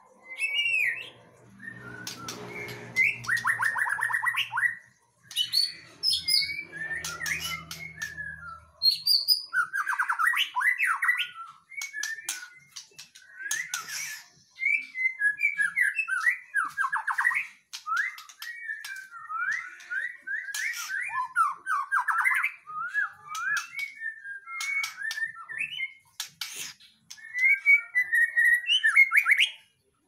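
White-rumped shama singing a long, varied song: phrase after phrase of whistled glides, fast trills and sharp clicking notes, broken by short pauses.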